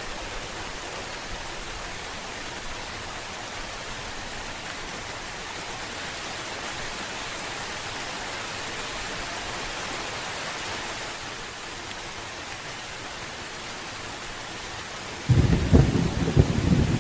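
Steady rain hissing, then near the end a sudden loud crack of thunder with a crackling low rumble.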